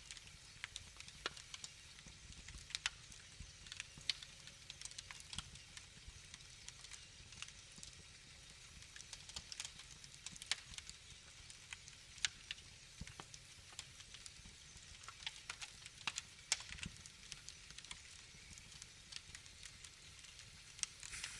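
Wood fire in a fireplace crackling: irregular sharp pops and snaps, a few a second, over a faint low rumble.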